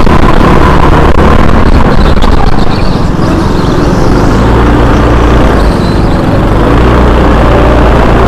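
Go-kart engine running hard and rising in pitch as it accelerates. It eases off briefly about three seconds in, then climbs in pitch again near the end.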